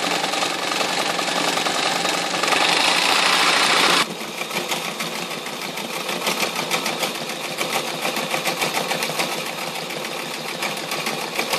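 Toyota sewing machine's motor running fast and steadily as it winds a bobbin. About four seconds in the sound changes abruptly to the machine stitching through fabric, with a quick, even rhythm of needle strokes.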